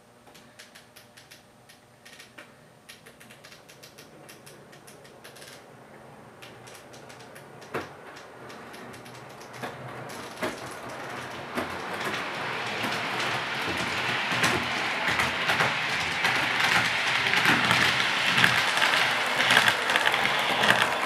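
Hornby LNER Azuma Class 800 model train running on the layout's track and coming closer: faint, irregular ticking of wheels over rail joints at first, swelling from about halfway into a loud, fast rattle of wheels and motor as it passes close by near the end.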